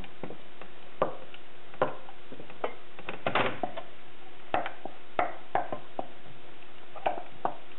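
Wooden spoon stirring a thick chocolate sauce in a stainless steel saucepan, knocking and scraping against the pan in short, irregular clicks about once or twice a second.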